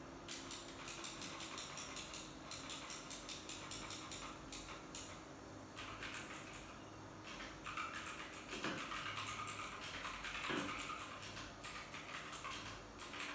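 Typing on a computer keyboard: quick, uneven runs of key clicks with short pauses.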